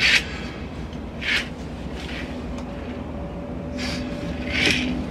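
Curtains being drawn open on a rod, sliding in several short swishes, the first the loudest, over a steady low hum.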